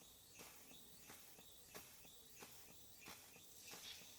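Gaselan DM2 model steam engine running steadily on low steam pressure, a faint regular beat about three times every two seconds.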